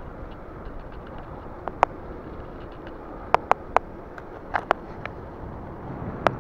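Steady road and wind noise from an e-bike riding along an asphalt road, with a scattering of sharp clicks, several close together around the middle.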